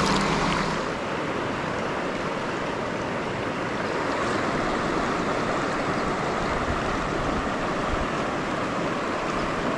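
Steady rush of river water.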